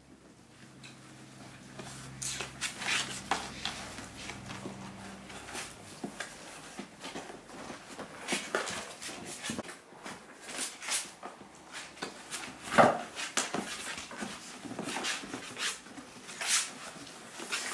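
Markiesje puppies scrabbling about in a cardboard box: irregular scratches, scrapes and knocks of claws and paws on the cardboard, with one louder knock about 13 seconds in.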